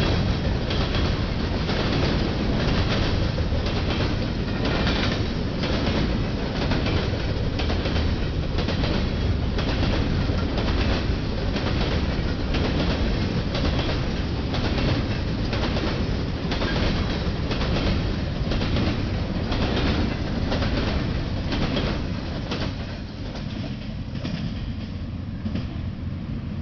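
Freight train cars rolling past, their wheels clacking over rail joints in a quick, even rhythm over a steady rumble. The sound eases off near the end as the train clears.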